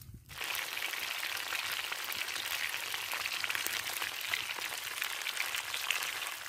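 Food frying in hot oil in a frying pan over a wood fire: a steady sizzle full of fine crackles, starting about half a second in and cutting off abruptly near the end.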